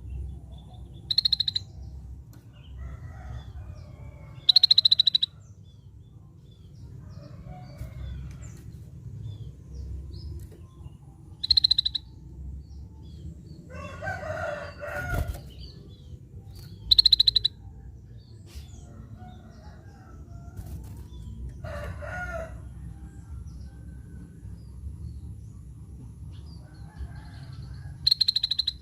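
Scaly-breasted bulbul calling: five short, high, rapidly pulsed notes, each well under a second and spaced several seconds apart. Twice a longer, lower, rougher call sounds between them, over a steady low rumble.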